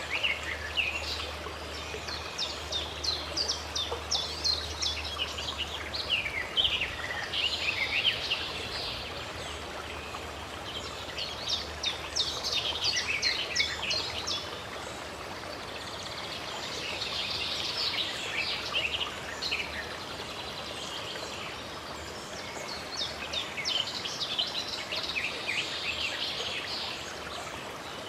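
Small songbirds chirping in quick trilling bursts every few seconds over the steady rush of running water.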